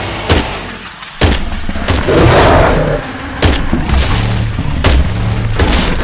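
Movie-soundtrack gunshots: about six sharp shots fired at uneven intervals, with a loud harsh rush of noise around the middle, over a low steady drone of score.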